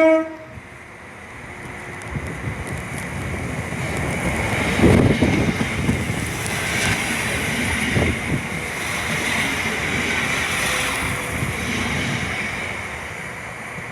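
A passenger train passing straight through the station without stopping. It gives a short horn blast right at the start, then the wheel and rail noise builds, stays loud for several seconds and fades near the end.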